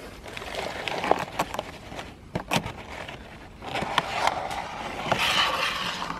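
Rustling and crackling of a thin plastic tray being handled and brushed through grass and undergrowth. There are several sharp clicks and knocks, and two longer rough stretches, one near the start and one in the second half.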